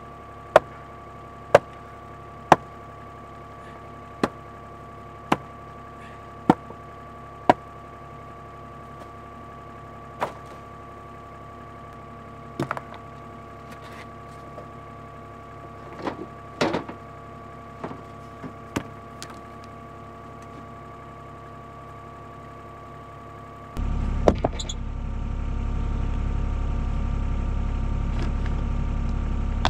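Excavator engine idling steadily, with sharp clicks and knocks over it, about one a second at first and then scattered. About 24 s in the engine goes up to a higher, louder speed and holds there.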